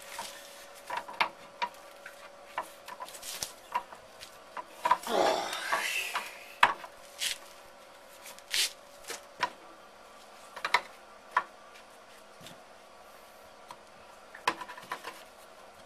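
A metal blade working on a wooden stick: scattered sharp knocks and taps of wood against wood and metal, with one longer scrape about five seconds in.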